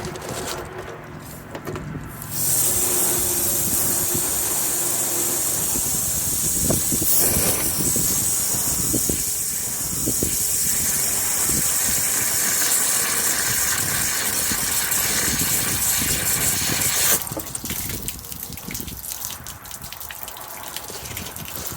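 Garden hose spraying water up into an RV water heater tank through its drain opening, the rinse water gushing back out, to flush out sediment after a vinegar soak. The steady spray starts about two seconds in and cuts off suddenly a few seconds before the end.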